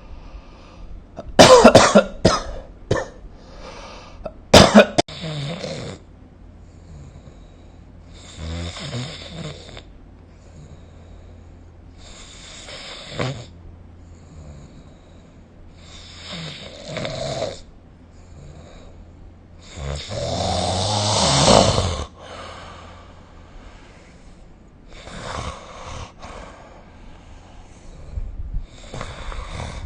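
A sleeping person snoring, one snore about every four seconds, the longest and loudest about two-thirds of the way in. A few sharp, loud bursts come in the first five seconds.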